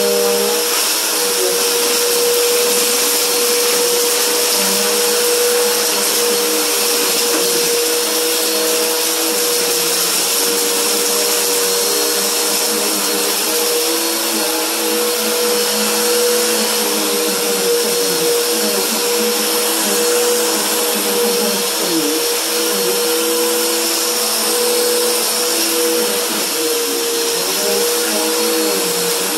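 Upright vacuum cleaner running steadily while it is pushed over a low-pile carpet runner, sucking up fine dirt. It gives a constant rushing of air with a steady mid-pitched motor hum.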